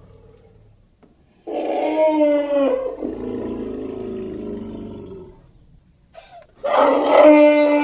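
Elephant trumpeting: a loud trumpet call about a second and a half in, sliding slightly down in pitch and trailing into a lower, rougher sound that fades out at about 5 s. A second loud trumpet call starts near the end.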